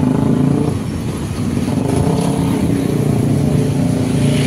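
Road traffic: motorcycle and car engines running as vehicles pass along the street.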